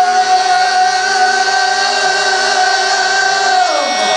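Music with one long held high note, sung, that drops away shortly before the end.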